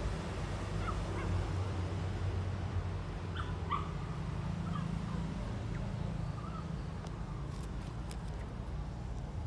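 Young puppies whimpering: a few short, high, upward-sliding whines, most of them clustered about three to four seconds in, over a steady low background rumble.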